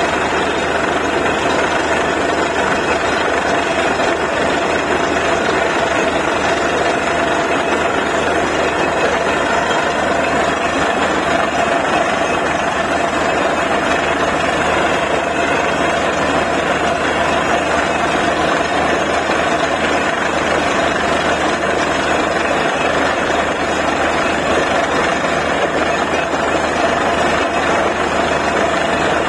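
Borewell drilling rig running steadily, a loud continuous machine noise with a constant hum and no change in level.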